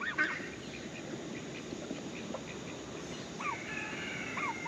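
Quiet, scattered clucks and chirps from chickens in a coop, with a few short falling calls and a longer high note in the last second or so.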